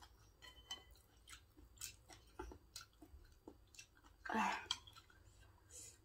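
A person chewing a mouthful of spinach salad, with many small, quiet mouth clicks and a louder breathy mouth sound about four seconds in.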